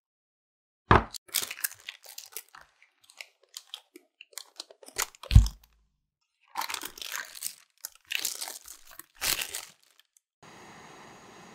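Parchment paper crinkling and rustling as it is handled, with two sharp knocks, about a second in and about five seconds in. A steady hiss starts near the end.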